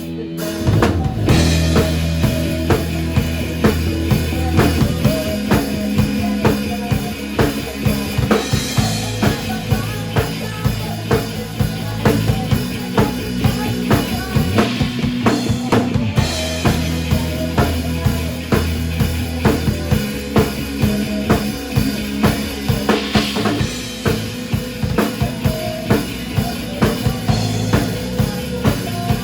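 Band music driven by a drum kit, with kick and snare keeping a steady beat over bass and other instruments.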